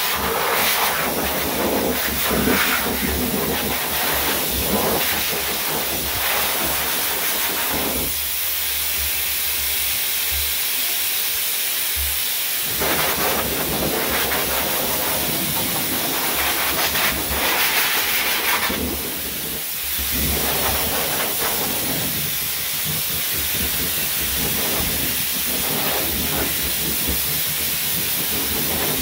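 Forced-air dog dryer blowing through its hose nozzle onto a dog's coat: a steady, loud rush of air. The lower part of the sound thins out for a few seconds about a third of the way in.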